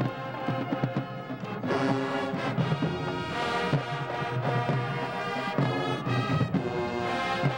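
Marching band playing: brass with sousaphones holding chords over a drumline of snares, tenor drums and bass drums, with drum hits throughout.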